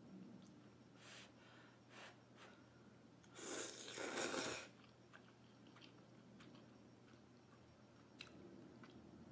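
A person slurping instant ramen noodles off chopsticks: one long, loud slurp about three and a half seconds in, lasting about a second, after a couple of short, fainter mouth noises.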